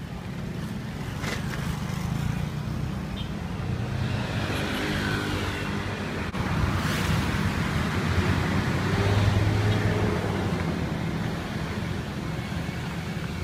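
Street traffic: a steady low rumble, with a motor vehicle passing close by that swells to its loudest about seven to nine seconds in and then fades.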